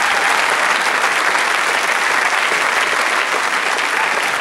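Studio audience applauding steadily, with a few faint voices mixed in.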